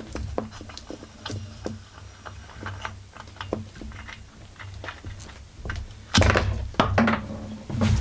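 Irregular small metal clicks and knocks of a wrench working the drum clutch off a Husqvarna 44 chainsaw's crankshaft, with a few louder thunks about six and seven seconds in as the clutch parts come off.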